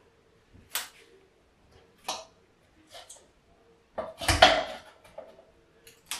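Kitchen utensil knocking and scraping against a nonstick air fryer basket as chicken pieces are turned: about six separate clicks and knocks, the loudest a heavier knock with a dull thud a little past four seconds in.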